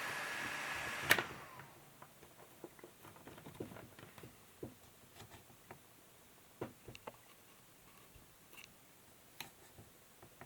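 HP EliteBook 8560w laptop cooling fan running fast with a steady whine. About a second in there is a sharp click and the fan winds down with a falling pitch. Light scattered clicks and taps follow.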